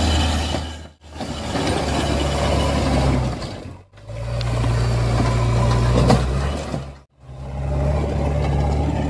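A steady, low engine running, in segments of about three seconds that cut out briefly about a second in, near four seconds and about seven seconds in. It is a dubbed engine sound effect; the toy vehicles shown are not running.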